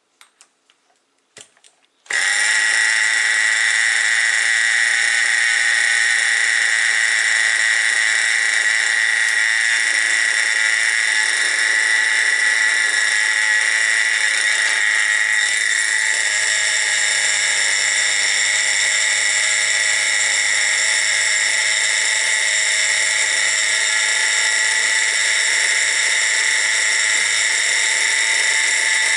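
Small nitro glow engine of a Tamiya TGX RC car catching about two seconds in and then running steadily with a constant high-pitched whine.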